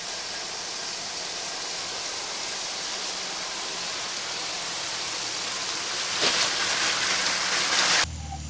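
Water sloshing and hissing as a 4x4 off-roader wades through a flooded rut, with its engine faint beneath. It grows louder about six seconds in as the vehicle comes close, then cuts off abruptly just before the end.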